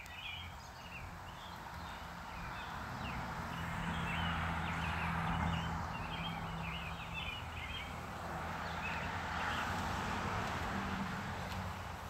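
Small birds chirping over a steady low hum and a rushing background noise that swells and fades twice.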